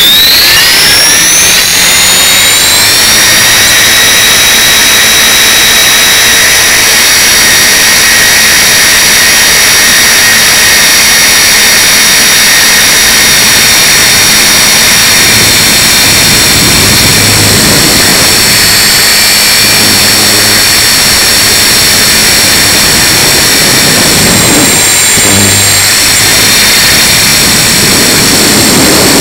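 Tarot 450 Pro electric RC helicopter's brushless motor, gears and rotor rising in pitch over the first few seconds as it spools up, then a steady high-pitched whine. Low rumbles of wind buffeting come through at times.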